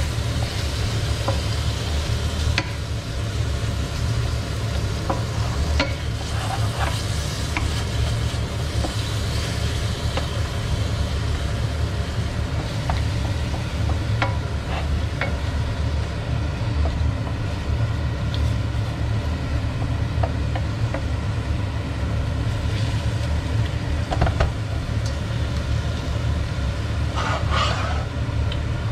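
A wooden spatula stirring and scraping chopped tomatoes and masala in a stainless steel frying pan, with the food sizzling and scattered clicks of the spatula against the pan, over a steady low hum. Fresh tomatoes are cooking into the masala base.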